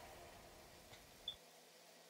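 Near silence: faint room hiss, broken by one brief high squeak a little over a second in.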